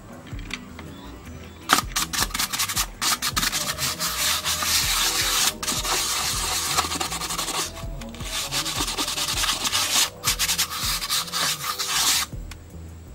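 Toothbrush bristles scrubbing a small loudspeaker's cone clean in quick back-and-forth strokes, a dry scratchy brushing. It starts about two seconds in, pauses briefly a few times, and stops near the end.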